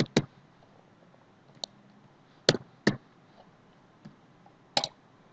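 Scattered clicks of a computer mouse and keyboard keys while values are entered into a table: about seven short, sharp clicks, some in close pairs.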